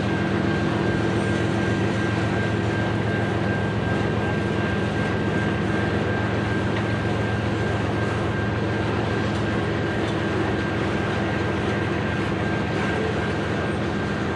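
Freight train boxcars rolling past steadily, an unbroken rumble of steel wheels on rail with a few steady low hums and a thin high tone running through it.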